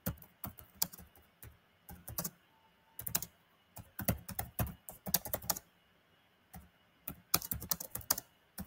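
Typing on a computer keyboard: irregular runs of key clicks, with a brief pause about two thirds of the way through.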